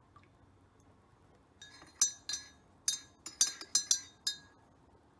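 A metal teaspoon stirring tea in a ceramic mug. It clinks against the sides of the mug about nine times, starting about a second and a half in, with each strike ringing briefly.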